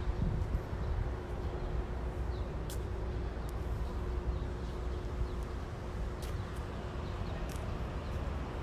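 Outdoor city-street ambience: a steady low rumble of traffic and air moving over a phone microphone, with a faint steady hum and a few light clicks.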